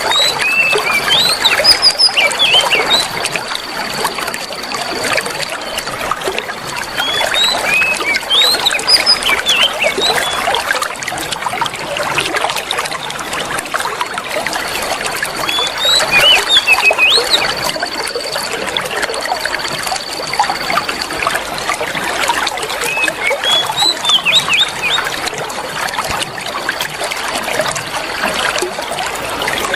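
Steady trickling water with small birds chirping in short bursts every few seconds, over a thin high steady tone that comes and goes.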